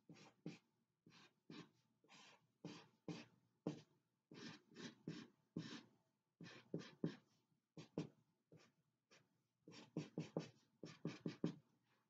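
Sharpie marker strokes on a sheet of paper: a faint, irregular series of short scratches with brief pauses between them, as a small face is drawn.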